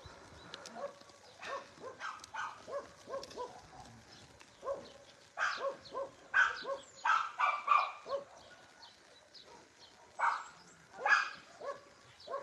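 Dogs barking in many short, repeated barks, in a loud bunch between about five and eight seconds in and again around ten to eleven seconds, with quieter barks between.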